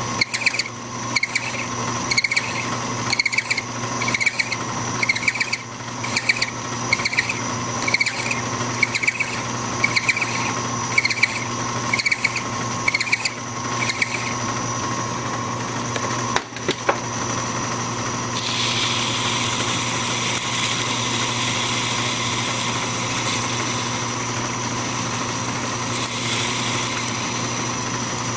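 A metal lathe runs steadily while a hand file is drawn across the end of a spinning steel drill-rod screw in even strokes, about one and a half a second, rounding off the end. From about 18 seconds in, the filing gives way to a steady hiss of emery cloth held against the turning part.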